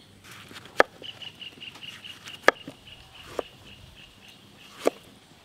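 Three sharp knocks about two seconds apart, with a bird's run of high, evenly spaced chirps, about five a second, between them.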